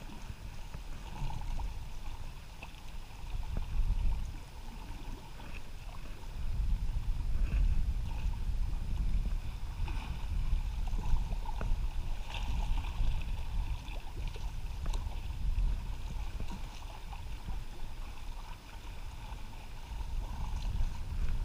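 Sea water lapping and washing against jetty rocks, with wind buffeting the microphone in a low, uneven rumble that swells and eases every few seconds.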